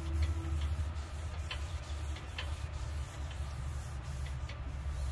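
Damp cloth wiping down a sanded wooden dresser panel with TSP solution, with a few light ticks and clicks, over a steady low rumble.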